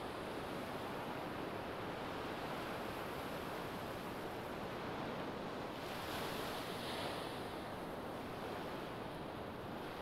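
Small waves breaking and washing up a sandy beach: a steady surf hiss, with one wave breaking more brightly about six seconds in.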